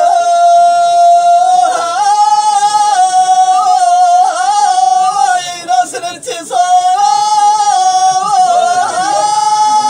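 Unaccompanied male singing of tamawayt, the free-rhythm Amazigh (Tashelhit) vocal chant. Long high held notes are bent into ornamented turns, with a short break for breath about six seconds in.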